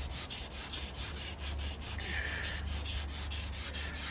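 Sandpaper rubbed by hand around a carbon fibre bicycle seat tube in quick, even strokes, about five a second. It is taking off the clear coat down to the carbon before a crack repair.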